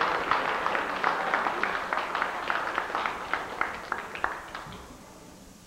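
Audience applause dying away, thinning out to scattered single claps and fading out about five seconds in.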